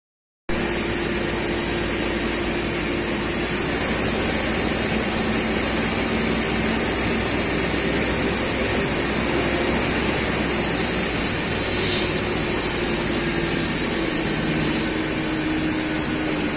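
CNC lathe turning a hydraulic piston rod supported on the tailstock centre. The spindle and machine run steadily with the hiss of the cut, and a faint hum drifts slightly lower in pitch late on.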